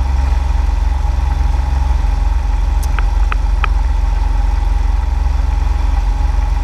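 Motorcycle engine running steadily under way, heard close up from a camera clamped to the crash bar, with a constant low rumble. Three short high ticks come about three seconds in.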